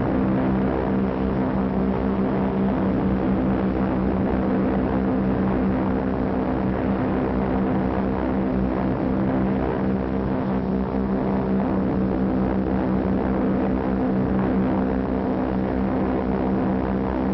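Massed propeller engines of a bomber formation droning steadily in flight, a low, unchanging hum of many engines together.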